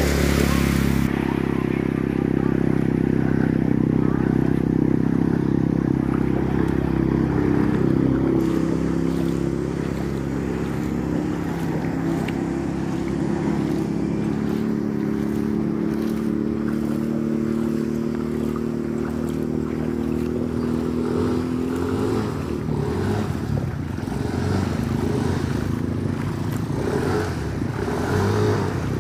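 A motor vehicle's engine running steadily, its pitch drifting slightly. About twenty seconds in the engine tone fades and a rougher, irregular noise takes over.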